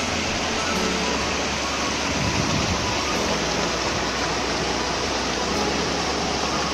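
Water from a small waterfall and a shallow rocky stream rushing and splashing over stones, a steady hiss of moving water.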